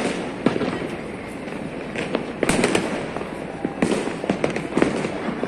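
Fireworks and firecrackers going off all around: a constant din of distant bangs and crackle, with several sharper, louder reports scattered through it.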